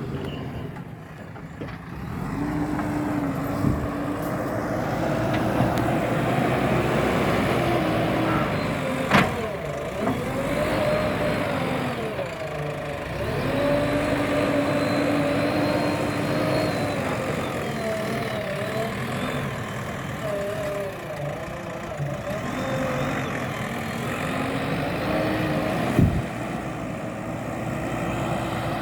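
JCB backhoe loader's diesel engine running and revving up and down as it works, its pitch rising and falling repeatedly. A sharp knock sounds about nine seconds in and another a few seconds before the end.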